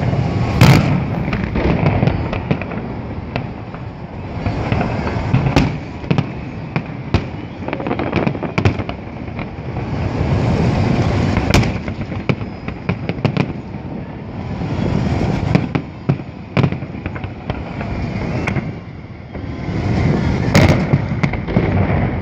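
Festive fireworks salute: repeated sharp bangs of bursting shells at irregular intervals over waves of crackling, with the loudest bangs about a second in and near the end.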